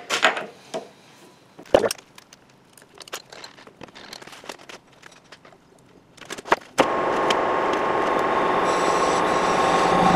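Scattered metal clicks and a sharp knock as a tool holder is set on a lathe's quick-change tool post and locked down. About seven seconds in, the metal lathe starts and runs with a steady mechanical hum carrying a couple of fixed tones.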